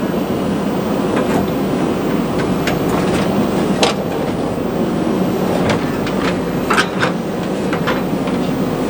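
Diesel engine of a JCB 3DX backhoe loader running steadily, with scattered sharp metallic clanks, loudest about four seconds in and again near seven seconds.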